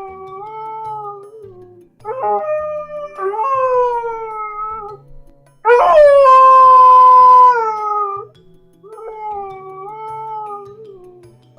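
A dog crying in long, drawn-out whining howls, about five of them with short gaps between. The loudest, about six seconds in, holds one steady pitch for roughly two seconds before sliding down.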